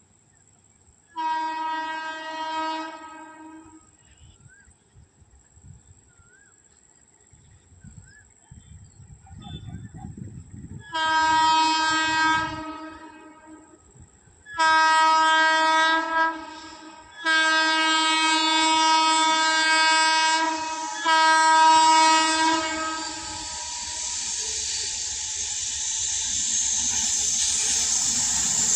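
Indian Railways express locomotive sounding its horn in five single-note blasts: a short one about a second in, two more around 11 and 15 seconds, then two long blasts close together. Over the last few seconds the rushing noise of the approaching train builds steadily louder.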